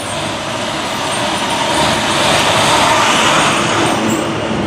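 Heavy truck driving past close by, its noise swelling to the loudest about three seconds in and then fading.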